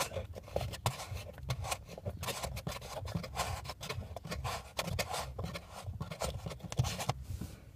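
Fingers undoing a plastic retaining screw and handling the textured plastic footwell trim panel: a run of short, irregular scratchy rubs and small clicks of skin and plastic on plastic.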